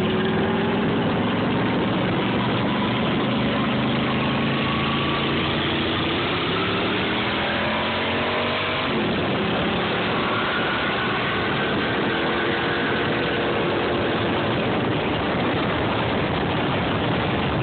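Ride-on lawn mower engine running, its pitch rising and falling as it speeds up and slows down, with a sharp drop about halfway through.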